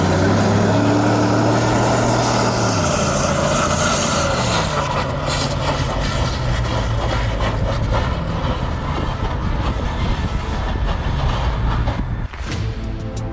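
Heavy vehicle engine noise with road rumble; the engine's pitch falls, holds and then shifts again, with rattling clicks through the middle. Music takes over near the end.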